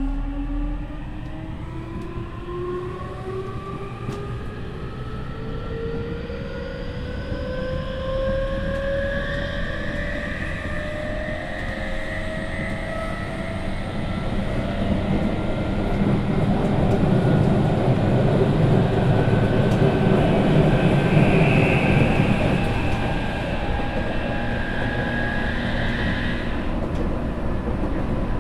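Tokyu 5000-series electric train accelerating, heard from inside the car. Its Hitachi IGBT VVVF inverter and traction motors give several rising whining tones over the running noise of wheels on rail. The running noise swells louder midway, and the higher tones cut off suddenly near the end as traction power is shut off.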